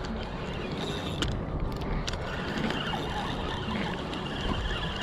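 Wind buffeting the microphone: a steady low rumble, with a faint thin high tone coming in about two seconds in.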